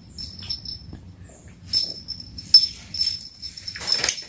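Close-up eating noises: mouth smacking and chewing in several short bursts, the loudest near the end, over a thin high-pitched whine that comes and goes.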